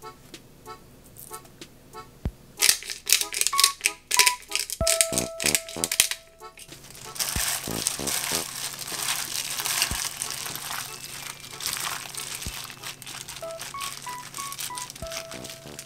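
Clear plastic glove crinkling loudly, starting about three seconds in, then a steady crinkly rustle as the gloved hand kneads chicken pieces and cabbage into red pepper paste marinade in a glass bowl. Soft background music underneath.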